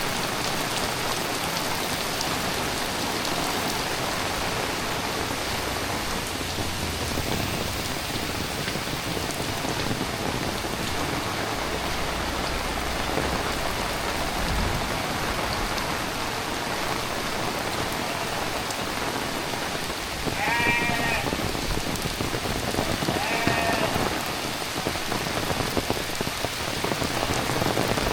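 Heavy rain falling steadily on surfaces, with an animal bleating twice, about three seconds apart, near the end.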